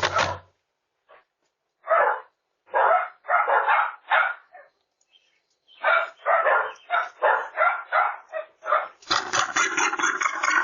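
Dog barking repeatedly in short separate barks, coming faster after about six seconds. A louder, fuller noise takes over in the last second and a half.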